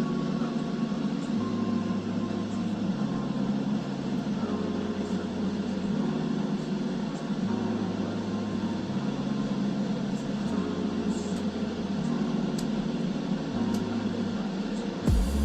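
Steady running rumble of a GO Transit commuter train, heard from inside the coach while it is moving. Under it a low two-note pattern alternates about every second and a half, and a sudden louder low rumble comes in right at the end.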